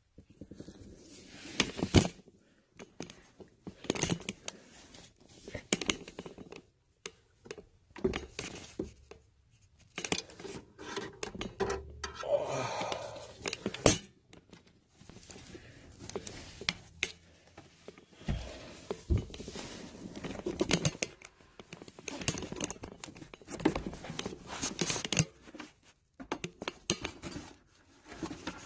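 Irregular clicks, knocks, scrapes and rustling of objects and the phone being handled close to the microphone in a cramped attic space, with a longer stretch of scraping about twelve seconds in.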